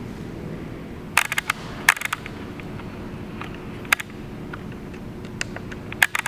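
Sharp clicks and knocks in short clusters, about a second in, near two seconds, once near four seconds and again near the end, over a steady low hum.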